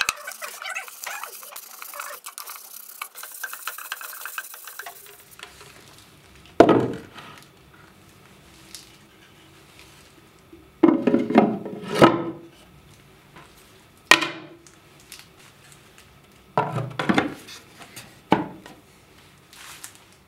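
Fine 600-grit sandpaper rubbing by hand on a wooden tray for the first few seconds. Then come a series of wooden knocks and clatters, about six in all, as the lift-out tray is set into the toolbox and the lid is put on.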